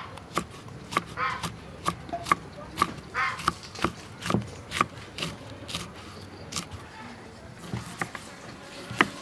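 Kitchen knife chopping red chillies on a thick round wooden chopping block, a sharp knock of the blade on the wood about twice a second; near the end the knife cuts limes. Faint voices underneath.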